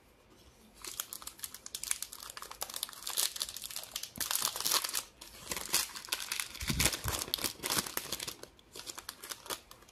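Wrapper of a 2023 Bowman Baseball hobby pack crinkling and tearing as it is pulled open by hand. A dense, high-pitched crackle starts about a second in and fades near the end.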